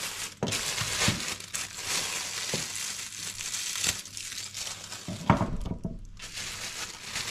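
Plastic roasting bag crinkling as it is handled around a joint of meat and its tied end is snipped with scissors, with a few sharp clicks. A heavier thump about five seconds in.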